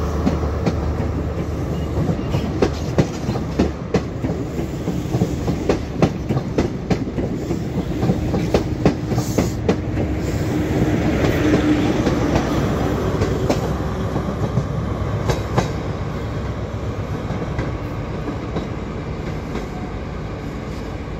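A ScotRail High Speed Train's Mark 3 coaches rolling past close by, the wheels clicking over the rail joints in a clickety-clack. The sound eases off over the last few seconds as the train draws away.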